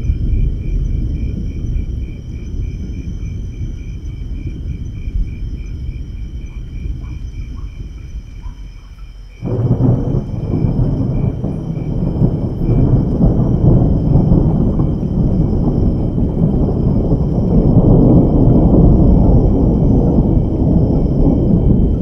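Thunderstorm: a low rumble of thunder dies away, then a sudden loud thunderclap about nine seconds in breaks into a long, deep rumble that builds again toward the end.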